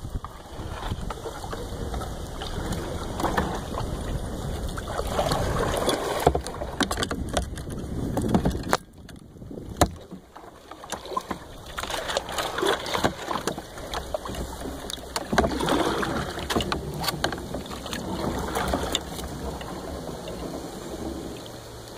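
Rubbing, rustling and knocking of the phone being handled or pressed against cloth, an uneven rumble broken by many sharp clicks, with a short lull about nine seconds in.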